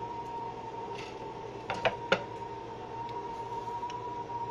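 A few light knocks and taps of hands and food being handled on a plastic cutting board, clustered about two seconds in, over a steady high-pitched background hum.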